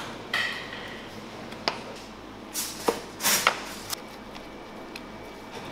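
Kitchen work sounds: scattered sharp clicks and knocks, with a few short noisy rasps about halfway through, over a steady background hum.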